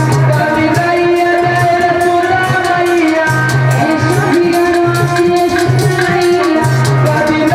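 Live Indian folk devotional song: a woman singing over a sustained melody line and a hand-drum beat.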